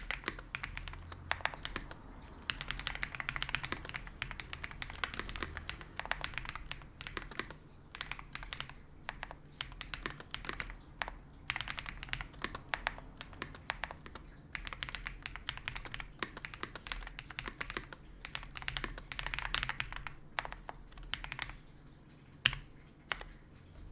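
Typing on an Ajazz AK820 Pro mechanical keyboard with Gift switches: fast runs of keystrokes broken by short pauses, with one louder single clack near the end.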